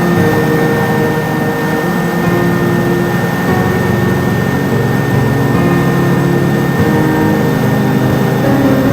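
Super Puma helicopter's twin turboshaft engines and rotor running steadily in flight: a constant high turbine whine over a heavy low drone.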